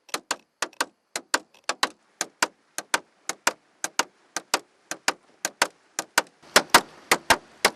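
A club pounding on the fishing boat in a quick, rhythmic ttuk-ttak beat of sharp knocks, often in pairs, about three to four a second, louder toward the end. This is the traditional pounding used to startle gizzard shad so that they flee into the net.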